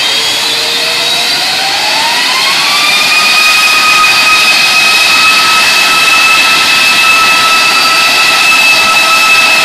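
Rolls-Royce RB211-524GT turbofan on a Boeing 747-400 spooling up during a ground engine run: its whine rises in pitch over about two seconds, then holds steady at the higher power setting, over a constant rush of jet noise.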